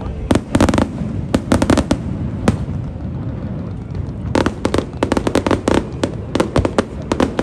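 Aerial fireworks exploding in a show: clusters of sharp bangs, a short lull with a low rumble, then a dense rapid run of bangs and crackles from about four and a half seconds in.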